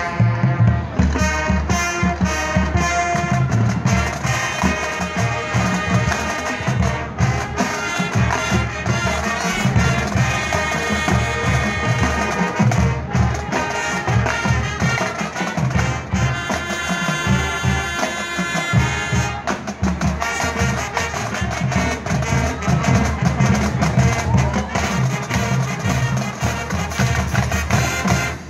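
High school marching band of brass, woodwinds and drum line playing together, recorded on a phone from the stadium press box. The full band plays loudly throughout and cuts off suddenly at the very end.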